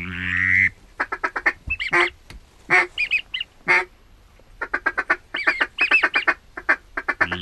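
Duck call blown close by in runs of quick, evenly spaced quacks, with a longer drawn-out call at the start and a few higher chirping notes in between: calling to bring approaching ducks in.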